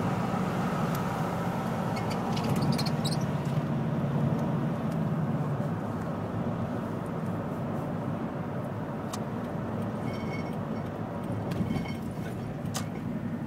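Steady engine and road noise of a moving car, heard from inside the cabin, with a few faint clicks.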